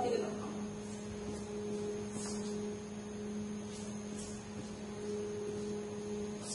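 Steady electrical hum with a faint background hiss: the room tone of the recording.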